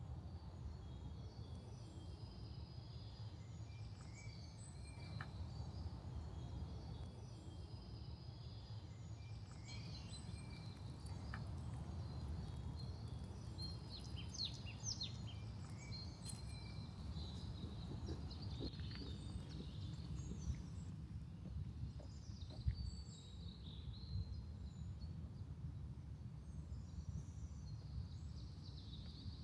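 Woodland ambience: small birds chirping and calling over a steady low rumble, with a few light clicks and one sharper knock about two-thirds of the way through.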